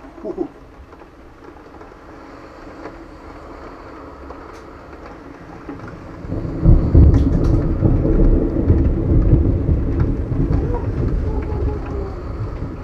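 A long, low rumble of thunder that breaks in about six and a half seconds in and rolls on, slowly easing.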